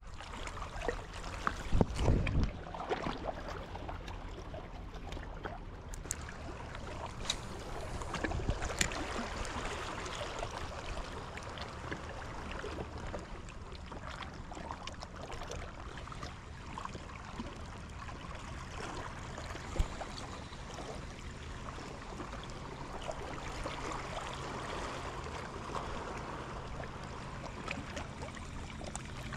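Small waves washing and lapping against shoreline rocks, with a faint low hum underneath. Knocks from handling the fishing rod and reel, loudest about two seconds in and once near the end of the first third.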